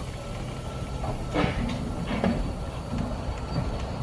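Vale of Rheidol narrow-gauge steam train pulling slowly away, its carriages rolling past with a steady low rumble and a few sharp knocks.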